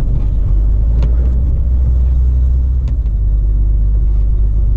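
Volvo FH16 660 truck under way at a steady pace: a deep, steady rumble of its 16-litre straight-six diesel and running gear mixed with road noise, with a couple of faint clicks.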